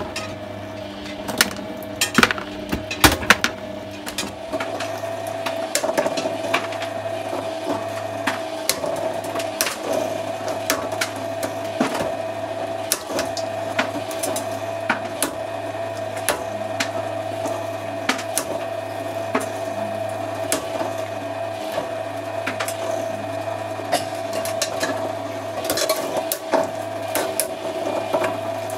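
Twin-shaft shredder running with a steady motor hum while its steel cutter discs crack and snap plastic toothbrushes apart in sharp, irregular cracks.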